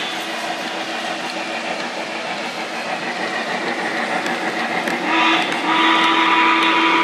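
Lionel model steam locomotive running past close by, its motor and wheels on the track making a steady mechanical whir. About five seconds in, its sound-system whistle starts blowing, a sustained tone held for about two seconds.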